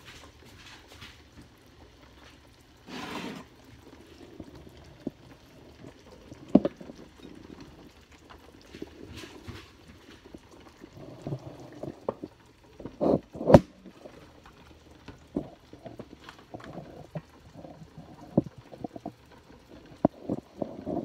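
A pot of soup simmering, with irregular bubbling and dripping pops over a low hiss, broken by a short hiss about three seconds in and a few sharp knocks, the loudest about halfway through.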